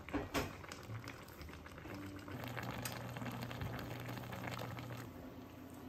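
Chicken stew in red broth bubbling steadily in a stainless pot on a portable gas stove, with a light knock near the start.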